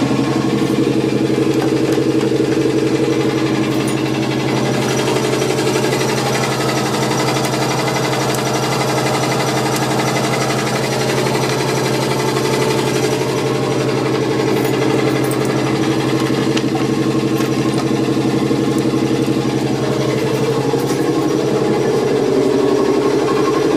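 The auxiliary machinery of a ČD class 451 electric multiple unit is running steadily while the unit is being brought into service. It makes a loud, even hum with a fast rattle through it.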